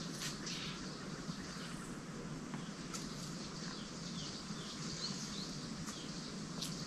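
Woodland ambience: small birds chirping in short, quick falling notes over a steady background hiss, with a few faint clicks.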